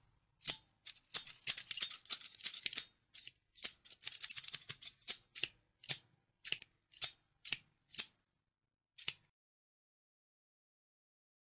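Scissors snipping: quick flurries of crisp snips, then single snips about two a second, with one last snip a second later.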